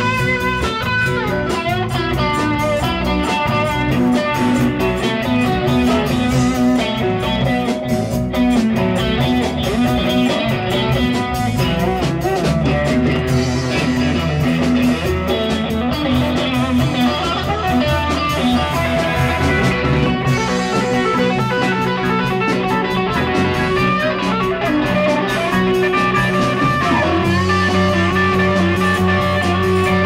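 A live rock band playing: electric guitar out front over keyboard, bass guitar and drums, continuous and loud.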